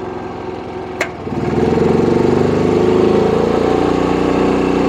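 Predator 9500 inverter generator's 459cc engine running; a switch clicks about a second in, and the engine speeds up and runs louder, rising for about two seconds and then holding steady, as it takes on a heavy heater load of about 7 kW.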